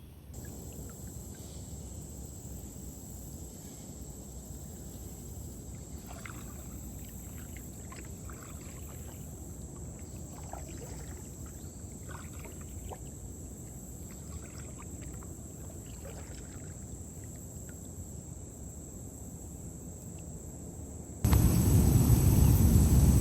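Kayak paddling: faint splashes and drips from the paddle over a steady low rumble. About 21 seconds in, the noise jumps suddenly to a much louder low rush.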